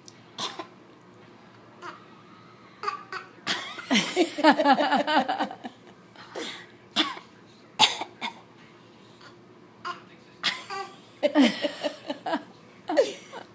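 Repeated short, weak fake coughs, made on cue and scattered through the stretch. About four seconds in there is a longer pulsing voiced stretch, like laughter.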